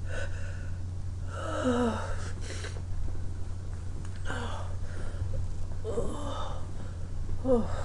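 A person's breathy gasps and voiced sighs, about four of them with the pitch falling in each, over a steady low hum.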